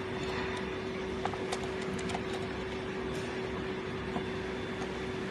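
A steady hum with a few light, scattered clicks.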